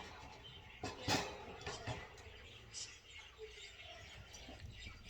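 Parts of a wire bird cage being handled during assembly: one sharp metal clank about a second in, with scattered lighter clicks and knocks.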